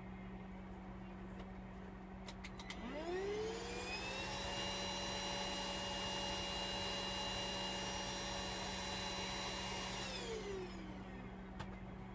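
A small electric motor starts after a few clicks, whines up to speed, runs at a steady high pitch for about six seconds, then winds down.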